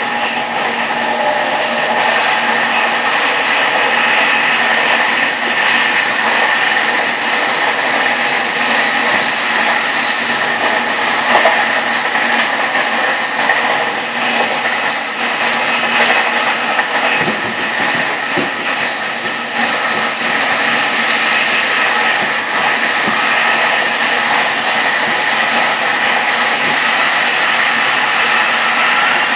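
VR Class Sr2 (Re 460-type) electric locomotive and the coach coupled to it running at speed, heard close up at the coupling: a steady rushing of wheels, rails and air with a few steady tones over it.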